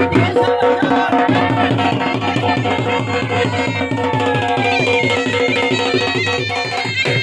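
Live dhol drum beating a fast, steady rhythm under a loud reed wind instrument, the baja, playing a folk melody over a steady held drone.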